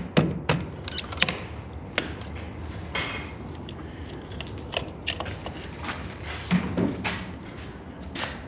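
Scattered clicks and knocks of tools and metal hardware being handled during garage door work, irregular and a few each second, over a steady low hum.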